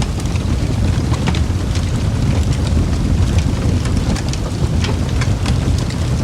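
Fireplace fire crackling: a steady low rumble of burning with irregular sharp crackles and pops scattered throughout.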